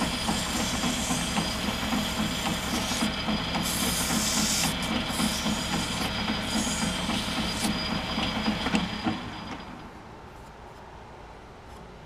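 Metal lathe running steadily while abrasive cloth is held against the bore of the spinning part, the cloth hissing in bursts as it is pressed in. About nine seconds in the lathe is switched off and its running sound falls away.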